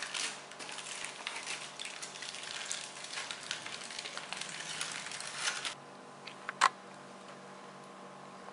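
Aluminium foil crinkling and crackling as it is peeled away from a block of set caramel, stopping abruptly about two-thirds of the way through. About a second later comes a single short, sharp click.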